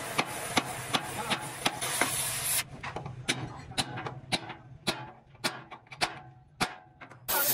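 Oxy-fuel gas torch hissing steadily while a hammer strikes steel at about three blows a second. About two and a half seconds in, the hiss stops, and the hammer keeps striking a steel punch held on a torch-heated rivet in the steel chassis rail. The hiss comes back near the end.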